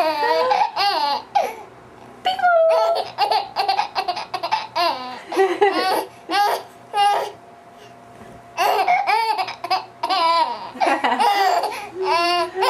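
Baby laughing in repeated bouts of high-pitched laughter, with a pause of about a second and a half past the middle.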